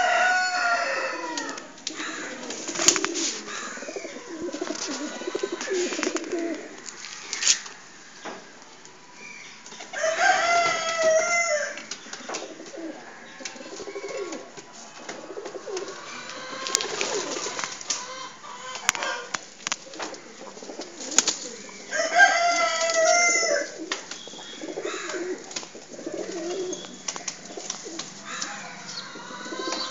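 Pigeons cooing in a loft, with low warbling calls throughout. A louder, higher-pitched bird call, about a second and a half long, comes about ten seconds in and again about twenty-two seconds in. Scattered sharp clicks run between the calls.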